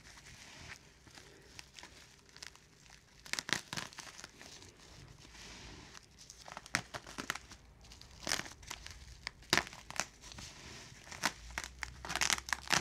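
Bubble wrap and plastic packaging being handled, crinkled and pulled apart by hand, in irregular bursts of crackling and rustling.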